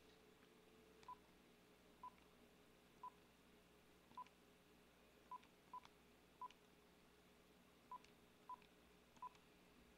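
Mobile phone keypad beeps as a phone number is dialled: ten short, faint beeps of one pitch, one per key press, at uneven intervals.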